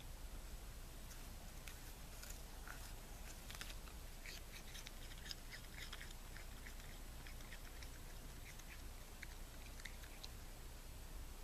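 Raccoon chewing an apple: faint, irregular runs of crunching, smacking clicks of munching.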